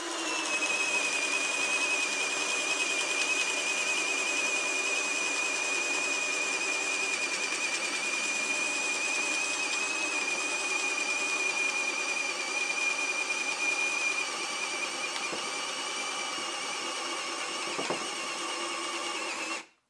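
Ryobi cordless hammer drill in drill mode at low speed, boring a spade bit into a pine timber. Steady motor and gear whine that dips slightly in pitch as the bit bites in, eases somewhat about fourteen seconds in, and stops abruptly just before the end as the hole is finished.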